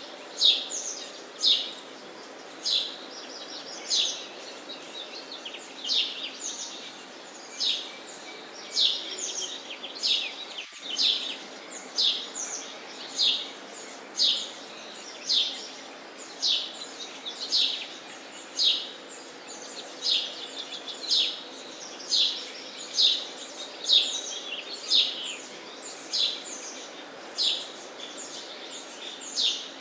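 Sparrows chirping: a steady run of short, sharp chirps, one or two a second, over a faint steady background noise.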